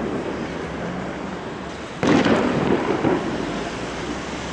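Aerial fireworks shells bursting. The noise of earlier bursts fades, then a sudden loud burst comes about two seconds in and slowly dies away.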